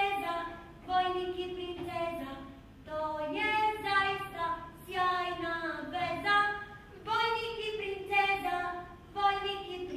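A high voice singing a slow melody in short phrases of held, gliding notes.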